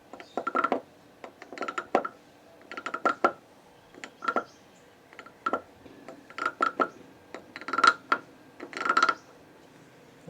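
Decorative wooden frog guiro being scraped along its ridged back, giving about eight short croaking rasps, roughly one a second.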